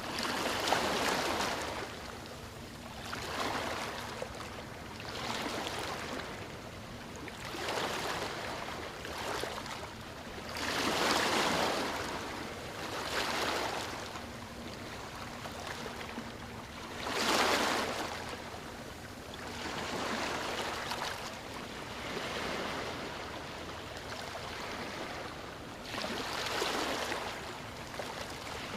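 Small waves breaking and washing up on a beach, a rushing swell every two to three seconds with the biggest breaks about a second in, around the middle, and a little past halfway.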